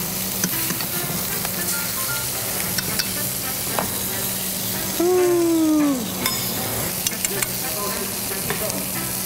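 Duck breasts sizzling as they sear in a hot cast-iron skillet, with light clicks of a fork and spatula against the pan. A little past halfway comes a loud falling pitched sound about a second long.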